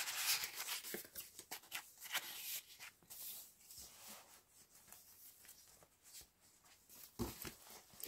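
Paper rustling and brushing as the thick, collaged pages of a handmade junk journal are handled and turned. The rustles come in short scattered bursts, thin out to near silence in the middle, and pick up again near the end.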